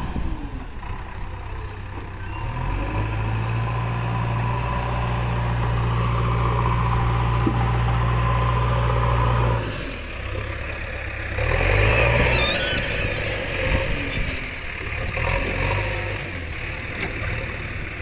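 Diesel engines of JCB 3DX backhoe loaders running. One engine revs up a few seconds in, holds steady at high revs for several seconds, then drops suddenly back toward idle. It revs up again briefly a couple of seconds later, with a few smaller rises after that.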